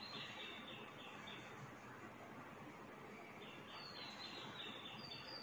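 Faint bird calls over a low steady hiss: a run of quick, evenly repeated high chirps at the start, and another run with a few short falling whistles from about three and a half seconds in.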